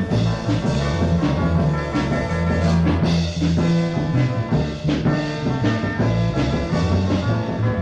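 Background music: an upbeat band tune with brass and drum kit, steady beat.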